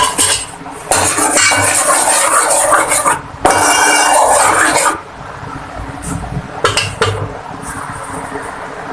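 Kitchen pot and utensils clattering and clinking in two loud spells of about two seconds each, then a few lighter clicks.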